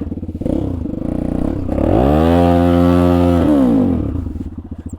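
Off-road motorcycle engine running at low revs, then revved up about two seconds in, held high and loud for about a second and a half, and dropping back to low running near the end, as the bike powers its way out of a rough spot.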